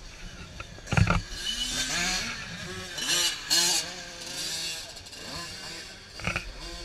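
Small 50cc motocross bikes revving as they ride past, the engine pitch rising and falling with each twist of the throttle. A sharp knock comes about a second in.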